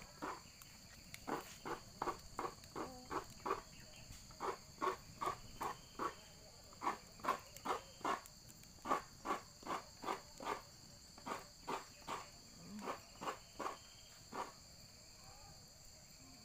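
Insects trilling steadily in two high, even bands, over a run of short dull knocks, about two or three a second, broken by a few brief pauses.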